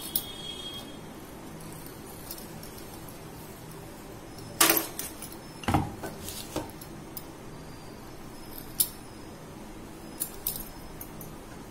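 A few sharp metallic clicks and clinks, the loudest about five seconds in, as a fluted metal pastry cutter wheel is run over rolled dough and the wooden rolling board is shifted by hand, over a low steady hum.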